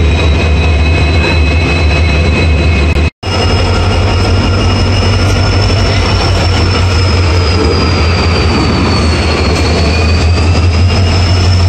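EMD WDP4D diesel-electric locomotive's 16-cylinder two-stroke engine running with a deep steady drone and a high steady whine. After a sudden cut about three seconds in, the locomotive moves past close by, its drone and a higher whine continuing, the whine dipping in pitch briefly near the end.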